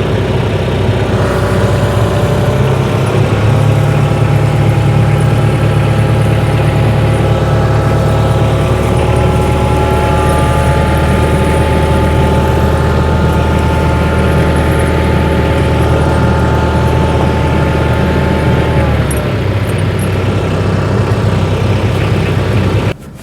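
Tractor engine running steadily while the tractor creeps forward to wrap a tire chain onto the tire; the sound stops suddenly near the end.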